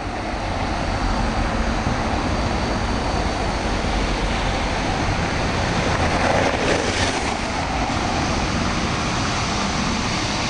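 Vintage yellow electric street tram running on its rails, heard from inside the car: a steady loud rumble and rattle of the wheels and body, swelling briefly a little past the middle.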